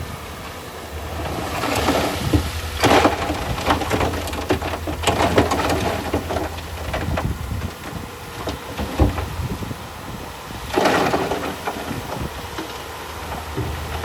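A heavy machine's engine running low and steady, with three bursts of rough, crunching noise, at about two, five and eleven seconds in.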